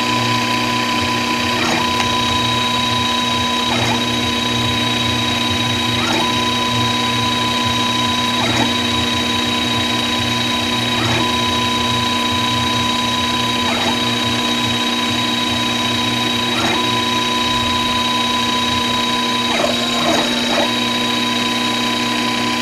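CNC router running: the spindle's steady high whine with several motor tones underneath, one of which breaks briefly about every two to three seconds.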